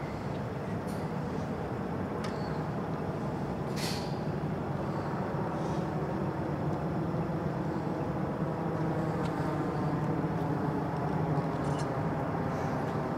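Steady low engine drone with a dense even hum, slowly growing a little louder, and a few faint sharp clicks, the clearest about four seconds in.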